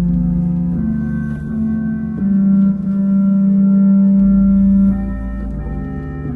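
Church organ playing slow, held chords that change every second or so. A deep bass note drops out just after the start and comes back in past the middle.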